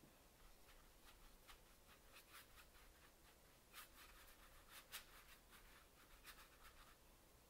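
A watercolor paintbrush working, with an irregular string of faint, short rubbing strokes, the two loudest about four and five seconds in.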